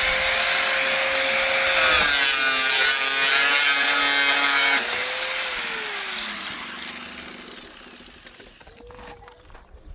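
Electric power tool motor running at full speed and cutting into material, its pitch dipping a little under load. Just before the five-second mark the trigger is released and the motor spins down, falling in pitch over about two seconds.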